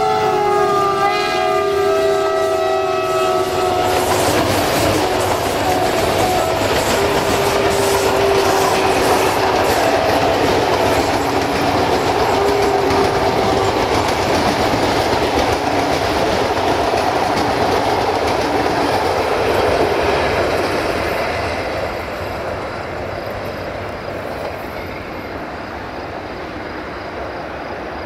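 A diesel locomotive's multi-tone air horn sounds for the first few seconds, then passenger coaches roll past with steady wheel clatter over the rail joints. The rolling noise fades away over the last several seconds as the train recedes.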